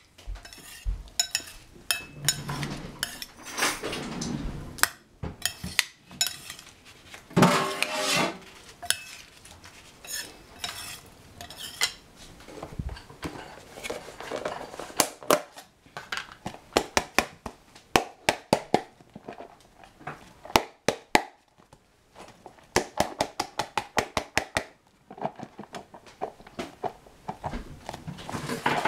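Two metal spoons clinking and scraping against a ceramic bowl as a chopped cucumber and olive salad is tossed, with quick runs of sharp clicks.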